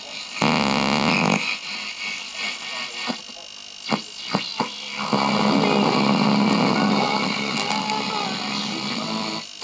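Home-built three-valve regenerative valve radio being tuned across the medium wave band: hiss and static, a loud burst of signal about half a second in, a few sharp crackles around four seconds, then a broadcast station coming up through the noise from about five seconds.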